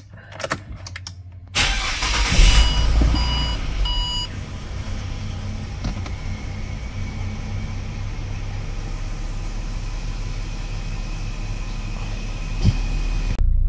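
Ford Territory's 4.0-litre Barra straight-six petrol engine starting about one and a half seconds in, flaring up and then settling into a steady idle. Three short warning beeps sound just after it catches.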